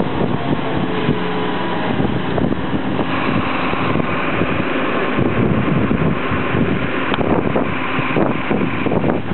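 Fire engine on the move: steady diesel engine and road noise, with wind rumbling on the microphone.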